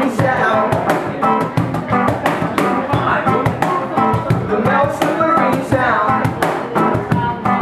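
Live reggae band playing: a man singing over a strummed electric guitar and an acoustic guitar, with steady rhythmic strokes.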